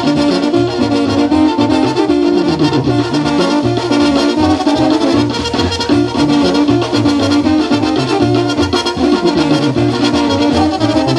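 Brass band music with a bass line stepping between notes in a steady rhythm.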